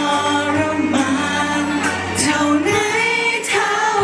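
Live singing through a handheld microphone and PA speakers over backing music, with long held notes.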